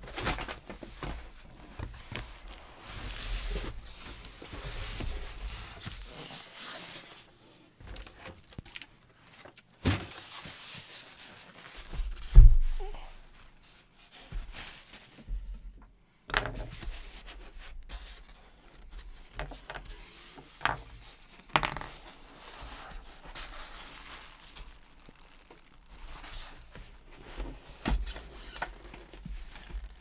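Unboxing handling noise: cardboard box being cut and torn, and styrofoam packing rubbing and scraping as it is worked out of the box, with plastic wrap rustling. A few sharp knocks, the loudest a thump about twelve seconds in.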